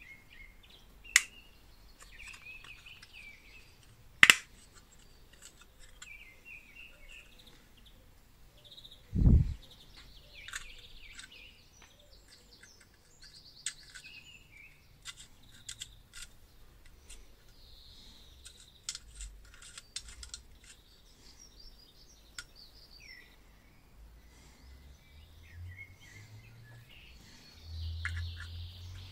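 Small clicks and taps of lamp parts being handled and fitted together as the lamp is reassembled, with one dull thump about nine seconds in. Birds chirp faintly in the background.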